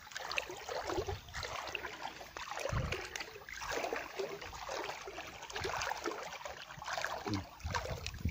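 Feet wading through shallow water, with uneven splashing and sloshing, and a couple of dull low thumps.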